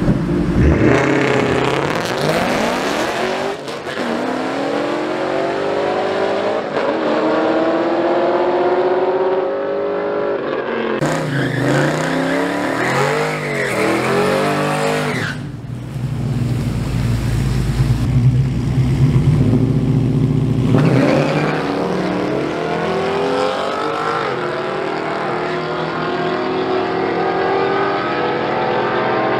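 Drag-racing cars launching and accelerating hard down the strip, engines revving up and dropping back at each gear change. The sound changes abruptly a few times, about 11, 15 and 21 seconds in, with a deep steady rumble in between.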